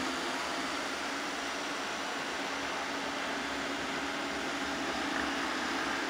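Shark robot vacuum running: a steady whirring hiss from its motor and brushes, with a low, even hum underneath.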